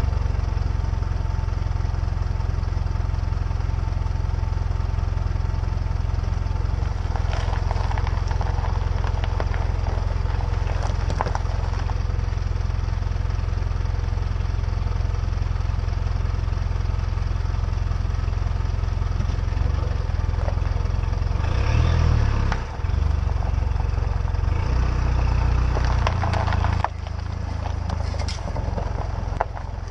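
A 4x4's engine running at a low, steady rumble close to the underside as the vehicle creeps over packed snow. Several crunches of tyres rolling over snow and crushed garbage, about a third of the way in, then twice more near the end.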